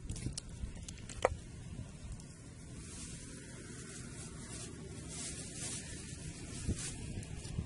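Hands working in wet, sticky mud with soft rubbing and squelching, and a sharp click about a second in. From about the middle, a plastic bag crinkles with a light hiss for a few seconds.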